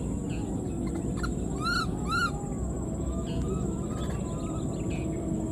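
Baby macaque calling for its mother: two short, high-pitched arched cries about half a second apart, a little under two seconds in, with fainter calls around them, over steady low background noise.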